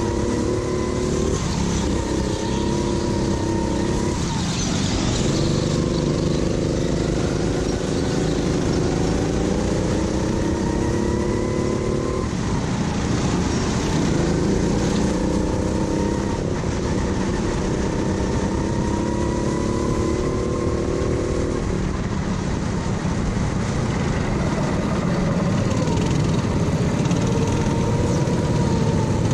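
Go-kart engine under racing load, its pitch climbing steadily for several seconds as it accelerates and then dropping sharply as the throttle lifts, about four times over.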